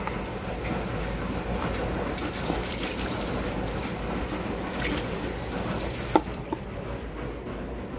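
Water from a sink tap running into a plastic container as it is rinsed out. Two light knocks come about six seconds in, and the high hiss of the water falls away just after.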